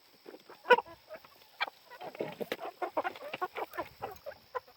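Meat chickens clucking, mixed with a string of short sharp taps, the loudest about a second in.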